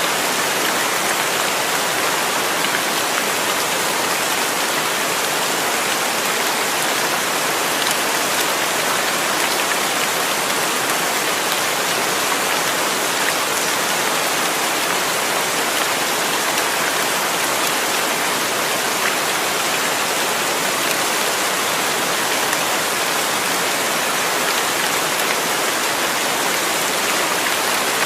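Steady, heavy rain, an even hiss of drops falling on hard surfaces with no let-up.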